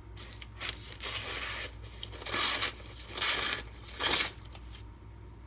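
A freshly sharpened and stropped 8Cr13MoV folding-knife edge, sharpened on a Beston 500 stone, slicing through paper in a cutting test: five or six short tearing strokes over about four seconds, the last the loudest.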